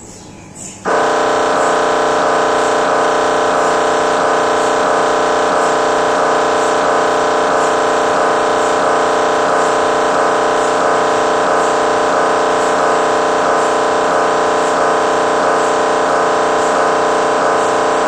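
GE MRI scanner's gradient coils running a scan sequence: a loud, steady buzzing drone of several tones that starts suddenly about a second in and holds unchanged.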